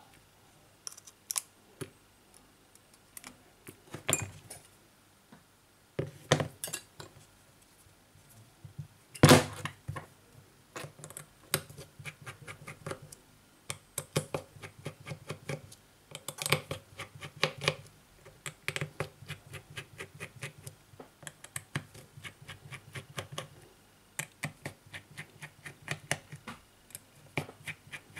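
Dense run of small clicks and ticks from a precision screwdriver working the tiny screws out of a Samsung Galaxy S8+'s inner frame, with the phone and small metal parts handled. There is one sharper knock about nine seconds in.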